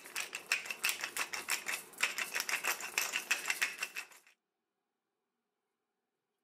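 Dense, rapid crackling and popping of hot melted cheese and oil sizzling on baked thick fried tofu. It cuts off abruptly about four seconds in.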